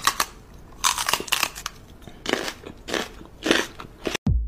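A dog licking and nibbling a cat's head, a run of short, irregular mouth strokes two or three a second. A dance beat with a thudding kick drum starts near the end.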